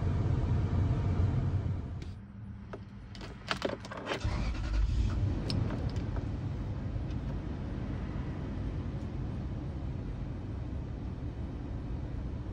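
Toyota Sequoia engine running at raised revs, dropping back toward idle about two seconds in. A few seconds of sharp clicks and rattles follow, then the engine runs on steadily at idle.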